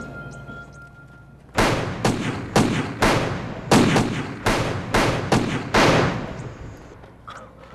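Revolver shots, about nine in quick succession over some four seconds, each sharp crack followed by a short ringing tail.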